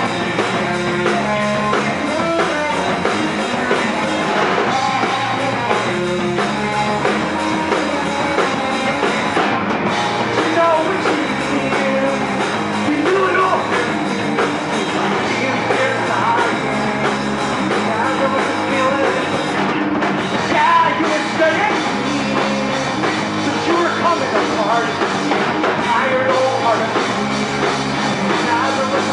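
Live rock band playing: electric guitar, drum kit and singing, loud and continuous.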